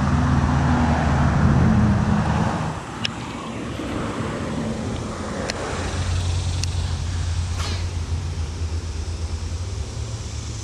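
Low, steady engine hum of a motor vehicle, louder for the first couple of seconds and then settling into a lower drone, with a few faint clicks.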